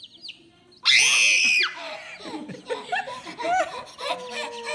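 Baby chicks give a few short peeps at the start, then a toddler lets out a loud shrieking laugh about a second in and keeps laughing in bursts.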